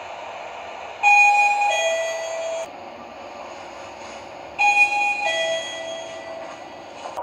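Sigma elevator chime sounding twice, about three and a half seconds apart, each a two-note ding-dong going from a higher tone to a lower one, over steady background noise.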